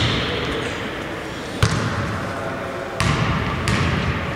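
A basketball bouncing on a hardwood gym floor: about four separate bounces, one to one and a half seconds apart, each echoing in the hall.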